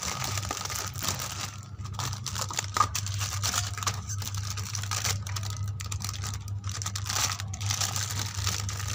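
Hands handling small plastic toys and packaging on a hard floor: scattered taps, clicks and rustling, over a steady low hum.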